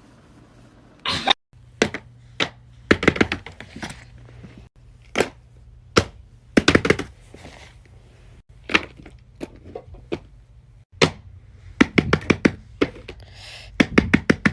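Fidget toys being handled, making irregular sharp clicks, taps and knocks, some in quick clusters, with a few abrupt cuts between clips.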